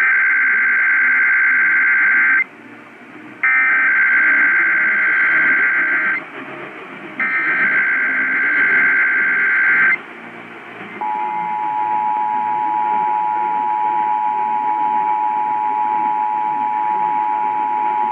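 Emergency Alert System test tones received over AM radio, with static underneath. First come three bursts of the SAME digital header, a warbling data tone about two and a half seconds long each, with a short gap between them. About eleven seconds in, the steady two-tone EAS attention signal (853 and 960 Hz) starts and holds.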